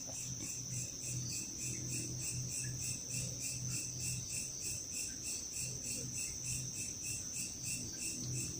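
Crickets chirping: a steady high-pitched trill pulsing about four times a second, with a faint low hum underneath.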